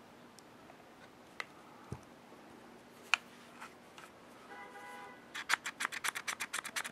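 A few light clicks of small metal parts being handled, a short squeak, then from about five seconds in a quick run of metallic clicks and scrapes, about six a second, as the freshly oiled ejector rod of a Smith & Wesson 360SC revolver is worked back and forth to spread the oil.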